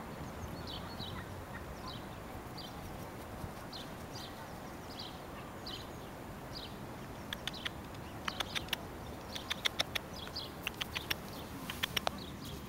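Sparrow chirping, short high chirps about once or twice a second. From about halfway through, a run of sharp, irregular clicks, the loudest sounds.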